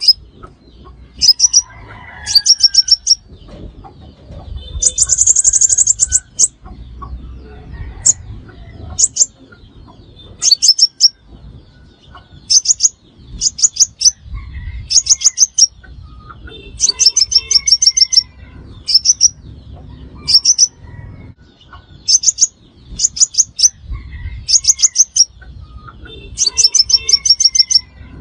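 Sunbird calls: short, loud bursts of rapid, thin, high-pitched notes, repeated every second or two.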